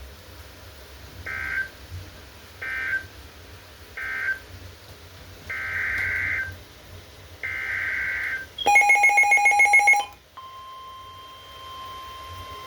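Emergency Alert System data bursts from a weather radio broadcast: three short screeching two-tone bursts marking the end of one warning, then two longer bursts carrying the header of the next warning. About a second of loud, rapidly pulsing electronic beeping follows, then a steady single-pitched alarm tone, the 1050 Hz NOAA Weather Radio warning alarm.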